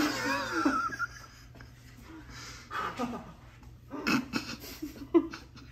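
A woman's wordless vocal sounds: a wavering high-pitched cry in the first second, then scattered short breaths and noises.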